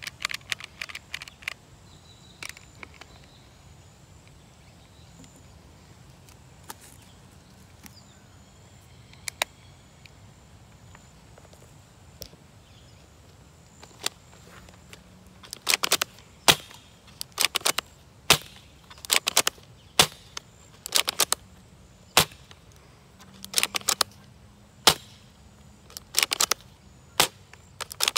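Sharp clicks and snaps, a few scattered ones at first, then quick clusters coming about every second from about halfway in.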